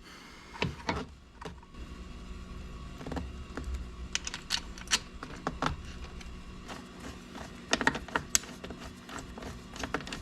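Irregular small clicks and rustles of a wiring cable being fed by hand through plastic interior trim. The clicks come thicker in the second half.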